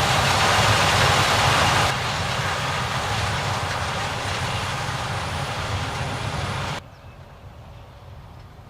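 Harvest machinery running steadily: the engine rumble and mechanical noise of a combine harvester and tractors at work in a corn harvest. The sound drops suddenly to a quieter level about two seconds in, and much quieter again near the end.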